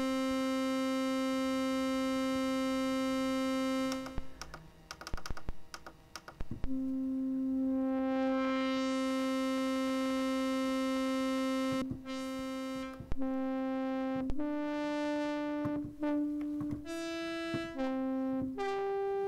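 Commodore 64 SID sound chip playing a pulse-wave synth tone that sounds a bit like a horn. Long held notes brighten and dull again as the filter sweeps over time, with a few short clicks between them, then a run of shorter notes at different pitches.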